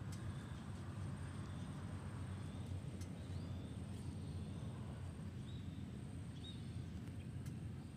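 Quiet outdoor ambience: a steady low rumble with faint short bird chirps now and then, a thin high steady whine, and a few faint clicks.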